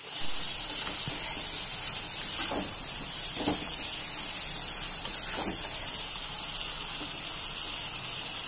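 Chicken and potato curry sizzling steadily in hot oil in a pan, stirred with a metal spatula, with a few short scrapes of the spatula about two and a half, three and a half, and five and a half seconds in.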